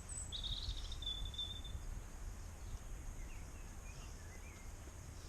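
Small birds chirping, a quick run of high chirps in the first two seconds and a few fainter ones later, over a low steady rumble.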